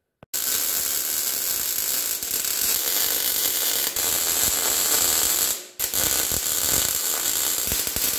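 Electric arc welding on the steel tire carrier: a steady crackle that stops briefly about two-thirds of the way through and then starts again, laying two beads.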